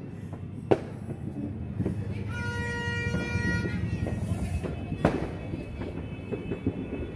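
Fireworks going off: two sharp bangs, one about a second in and one about five seconds in, over a steady low rumble. In the middle a horn sounds one held note for about two seconds.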